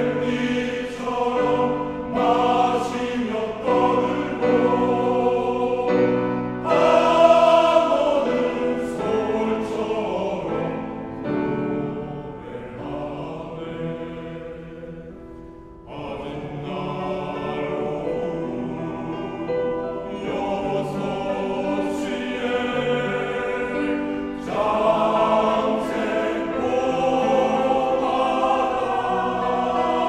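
Male choir singing a Korean choral song in parts with grand piano accompaniment. The singing thins to a soft passage a little before halfway, then the full choir comes back in.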